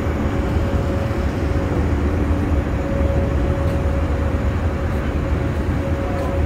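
Steady mechanical drone with a constant hum running through it, over a fluttering low rumble of wind on the microphone.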